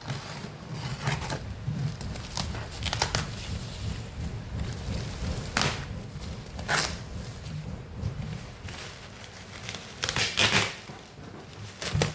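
Short bursts of rustling and crinkling from things being handled, several times, over a steady low hum.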